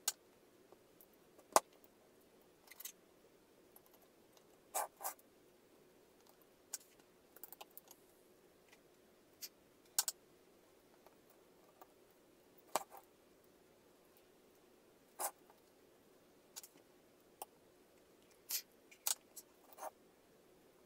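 Scattered small clicks, taps and rustles of wires and a BMS circuit board being handled and fitted onto a plastic 18650 cell holder, some coming in quick pairs.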